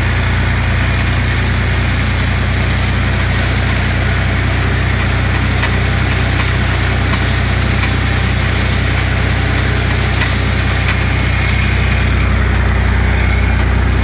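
Farm tractor engine running steadily at working speed while pulling a hay rake, heard from the tractor, with a steady hiss over the low engine drone.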